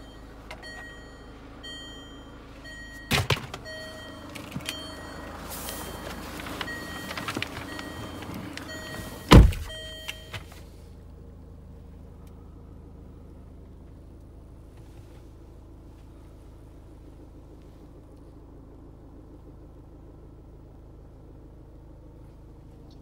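Range Rover cabin warning chime beeping repeatedly, with a sharp thud about three seconds in and a much louder thump about nine and a half seconds in. The chime stops shortly after the loud thump, leaving a faint steady low cabin hum.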